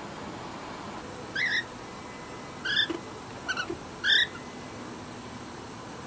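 Cockatiel chirping: four short chirps, the first about a second and a half in and the last just past four seconds.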